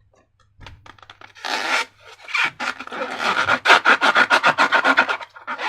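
Hands working slime-making materials: a short scratchy rub about a second and a half in, then a fast run of crackling, rubbing strokes that stops near the end.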